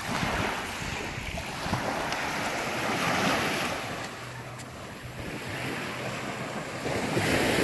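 Waves washing against a jetty, with wind rumbling on the microphone; the wash swells up just after the start, again about three seconds in, and near the end.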